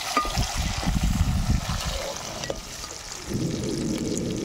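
Onions, tomatoes, green chillies and curry leaves sizzling in hot oil in a wok, with a metal spatula scraping and tapping the pan as they are stirred; a couple of sharp clicks stand out.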